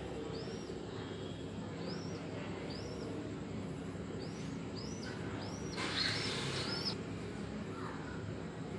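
A bird chirping: short notes that rise and fall, repeated roughly once a second over a steady low hum, with a brief burst of hiss about six seconds in.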